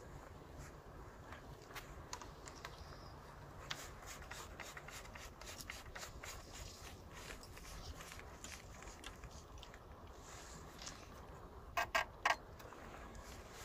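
Faint scattered clicks and light scraping from a spinning reel and telescopic fishing rod being handled, with three sharper snaps close together near the end as the rod's sections are pulled out.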